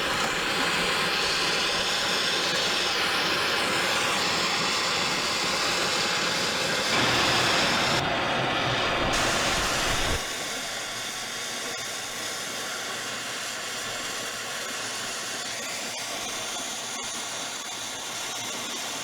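MAPP gas torch burning with a steady hissing roar, heating steel exhaust pipe to bend it. The flame noise steps down to a quieter hiss about ten seconds in.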